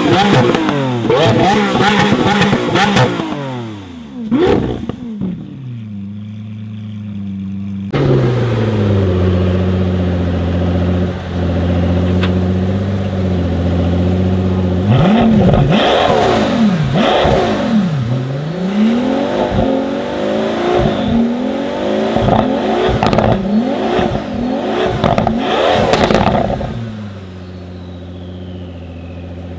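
Lamborghini Aventador V12 revved hard a few times, then falling back to a steady idle. After a cut about eight seconds in, a Pagani Huayra's V12 idles, is blipped repeatedly for about ten seconds, and settles back to idle near the end.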